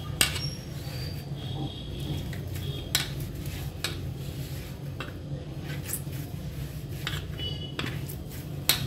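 Hands kneading a stiff jaggery and ground flattened-rice dough in an aluminium pan, with scattered sharp knocks and scrapes against the metal pan, the loudest near the end. A steady low hum runs beneath.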